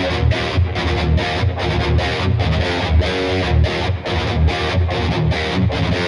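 Washburn XM STD2 electric guitar played through heavy distortion: a choppy low rhythm riff, the notes cut off in short gaps about three times a second.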